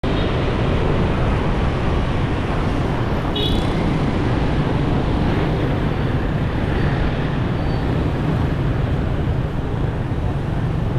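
Steady road traffic noise heard from a moving vehicle, a dense rumble with hiss, cutting in abruptly at the start. A brief high-pitched tone sounds about three and a half seconds in.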